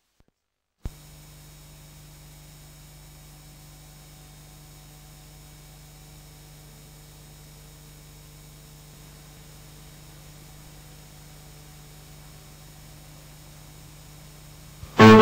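Low steady electrical hum with faint hiss, which begins with a click about a second in. Music starts right at the end.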